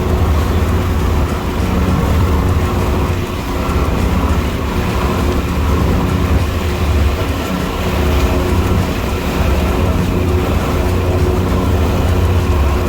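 Fishing boat's engines running steadily under way, a low drone with a broad rush of wind and water over it.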